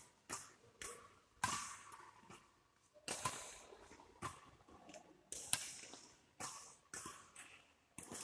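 Badminton rally: racquets striking the shuttlecock again and again, each hit a sharp crack about every half second to a second, ringing briefly in the large hall.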